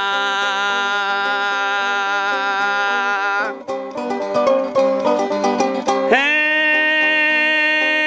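Sasando gong, the Rote palm-leaf tube zither, plucked in a quick repeating pattern. A man sings a long held note over it that ends about three and a half seconds in. After about two seconds of the sasando alone, he starts another long held note, sliding up into it, about six seconds in.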